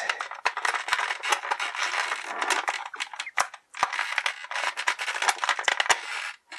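Thin clear plastic blister tray crinkling and crackling as it is flexed in the hand, with many small sharp clicks and taps of a plastic action figure being handled against it.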